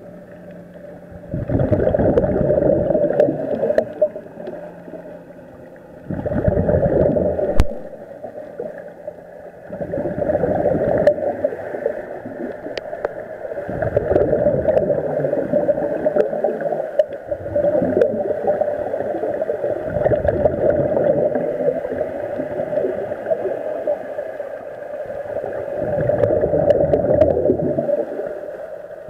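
Scuba regulator breathing heard underwater: bursts of exhaled bubbles gurgling and rushing every three to four seconds, with a quieter steady hiss between breaths.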